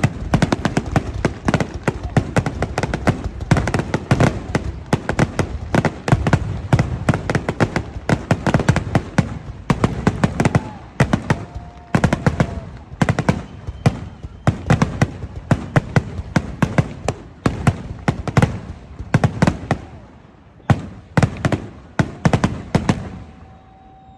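Fireworks grand finale: a dense barrage of rapid, overlapping shell bursts and bangs, thinning to a few scattered reports in the last few seconds.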